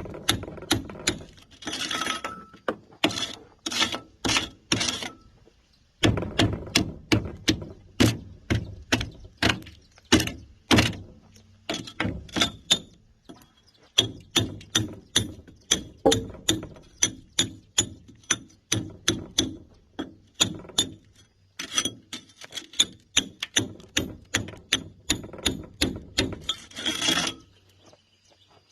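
Hammer and chisel chipping concrete: a steady run of sharp metal-on-metal blows, about two a second, each with a high ring, broken by pauses of about one and two seconds. A short rushing noise comes about two seconds in and again near the end.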